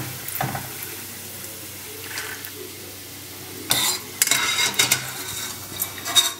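Water splashing and pouring as soaked flattened rice (avalakki) is drained in a strainer. There is a faint hiss at first, then a run of sharper splashes and scrapes from a little before the four-second mark.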